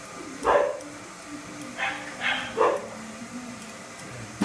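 A dog barking in short single barks, one about half a second in, three close together around two seconds in and one more at the end, over a steady low hum.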